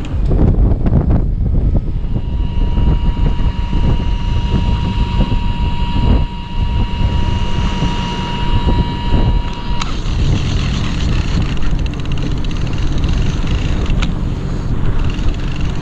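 An electric fishing reel's motor whines at one steady pitch while winding, from about two seconds in until it cuts off suddenly near ten seconds. Under it the fishing boat's engine rumbles steadily, with wind and sea noise.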